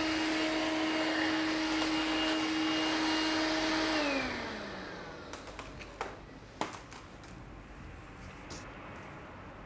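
Cordless stick vacuum cleaner running with a steady whir and hum, then switched off about four seconds in, its pitch falling as the motor winds down. Two light knocks follow a couple of seconds later.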